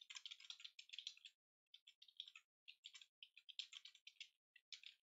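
Faint typing on a computer keyboard: quick runs of keystrokes with short pauses between them.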